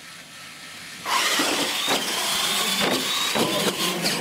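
Two electric R/C monster trucks launch off the start line about a second in and accelerate hard: a rising motor and gear whine over a dense rush of noise, with a few short knocks.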